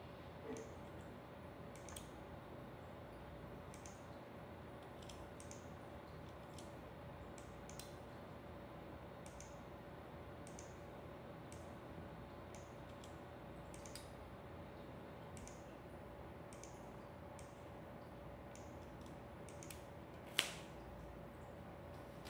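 Faint, scattered clicks of computer input (key presses and clicks) while values are entered to switch PLC outputs, about one or two a second, with one sharper, louder click near the end. A faint steady electrical hum runs underneath.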